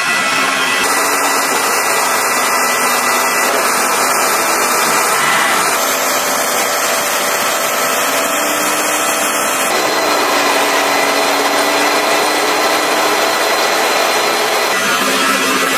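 M1A2 SEP v2 Abrams tanks' gas turbine engines running, a loud, steady high whine and hiss whose tone shifts a few times.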